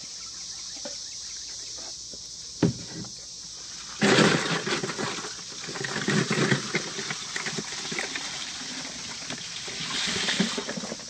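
Boiled crawfish poured from a perforated stainless-steel boil basket into a plastic cooler. A dense rush of shells clattering and boil water running out starts suddenly about four seconds in and goes on to the end, after a single knock a little earlier.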